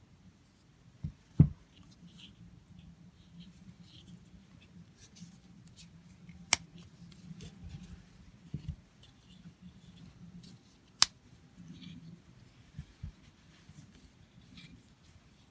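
Two Japanese electrician's folding knives with wooden handles and steel bolsters being handled and their blades opened. There is a dull knock about a second and a half in, and two sharp metallic clicks several seconds apart, with light tapping and rubbing between.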